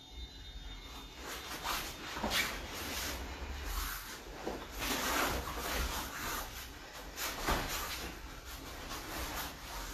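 Heavy gi fabric rustling and bodies shuffling and scuffing on foam puzzle mats as a pendulum sweep is drilled, with a few dull thumps as a body is swept over and lands on the mat.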